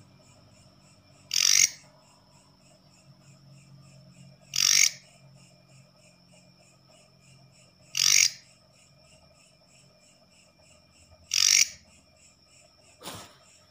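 Leaf katydid calling: four short, loud, raspy calls at an even pace, about one every three seconds, over a faint, fast, high-pitched pulsing of other insects. A single click comes near the end.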